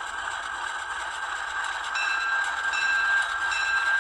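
Sound decoder of a Rapido HO-scale MR20C model diesel locomotive playing the diesel idle through its small speaker. About halfway through, the locomotive's bell starts ringing steadily, about once every three-quarters of a second.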